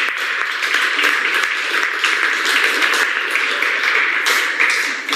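Audience applauding, a steady wash of many hands clapping that begins to ease off near the end.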